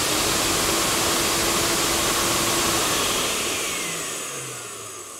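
Cheetah II ash vacuum's motor running, a little bit loud and shop-vacuum-like; about three seconds in it winds down, fading with a falling whine.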